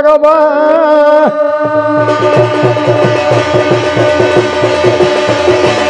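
Garhwali jagar singing and drumming: a man holds a long, wavering sung note on "bhagwan" for the first second or so. About a second and a half in, a double-headed barrel drum (daunr) starts a fast, even beat of about five strokes a second, with a brass plate (thali) ringing steadily over it.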